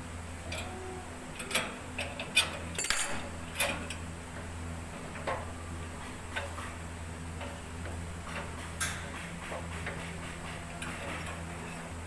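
Irregular sharp metallic clicks and clinks, most of them bunched together in the first few seconds, over a steady low hum.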